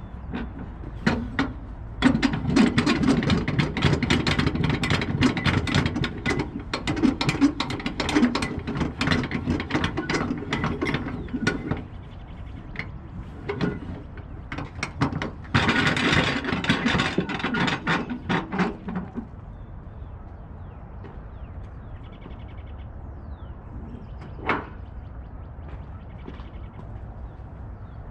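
Rapid ratchet clicking from a flatbed's cargo strap winch or ratchet strap being worked. It comes in two runs, a long one of about ten seconds and a shorter one of about three seconds, followed later by a single sharp click.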